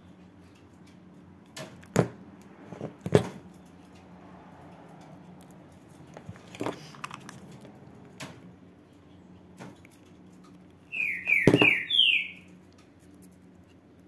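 Sharp clicks and knocks as a hot glue gun and a metal duckbill hair clip are handled and pressed onto a ribbon bow, over a low steady hum. Near the end comes the loudest part: a quick run of four high, sliding chirps.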